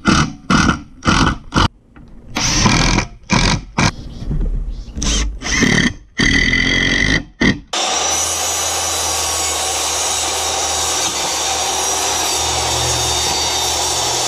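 A series of short scraping strokes, as of a hand tool working wood. About eight seconds in, a power tool starts and runs steadily with a low hum.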